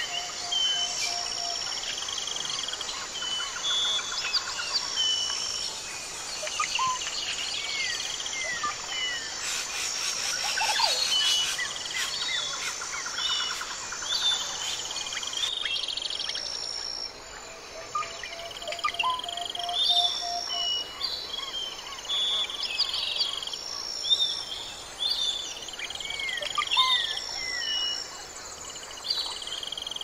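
Birds chirping, with short whistles and quick falling chirps, over a steady chorus of insects trilling in short repeated pulses. The birdsong gets busier for a few seconds in the middle.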